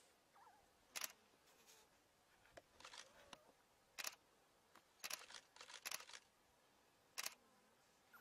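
Near silence broken by faint, sharp clicks about once a second, some coming in quick runs of two or three.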